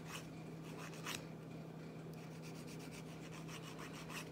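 Faint rubbing and scraping of a small manicure tool against an elderly woman's fingernails, with two slightly louder scrapes near the start and about a second in. A steady low hum runs underneath.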